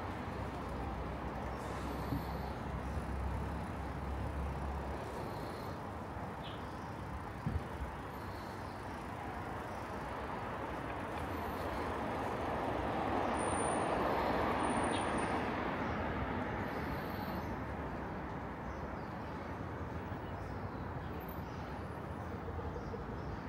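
Residential street traffic heard from a moving bicycle: a steady background of road noise, with a vehicle passing and growing louder about halfway through before fading again.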